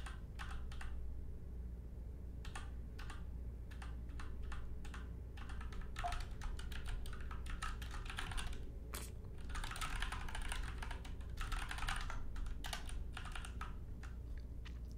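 Typing on a computer keyboard: clusters of quick keystrokes separated by short pauses.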